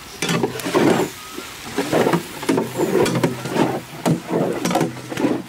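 Long metal spatula stirring and scraping noodles and fried chicken around a large steel pan, in repeated strokes about once a second.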